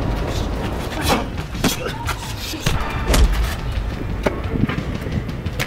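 Fight impacts: a rapid series of hard punch and body-blow thuds, about seven in under six seconds.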